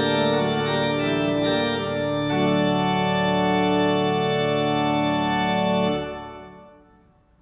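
Church pipe organ playing sustained full chords, moving to a new chord about two seconds in. The final chord is released about six seconds in and dies away in the church's reverberation, closing the piece.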